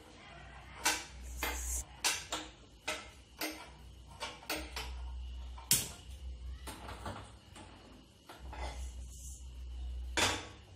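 Hand-held spark gas lighter clicking again and again at a gas stove burner, about a dozen sharp clicks at uneven spacing, until the burner catches. Near the end a metal kadai is set down on the burner grate with a knock.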